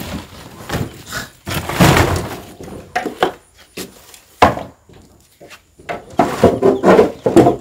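Irregular clattering knocks and scrapes, with one sharp knock about four and a half seconds in.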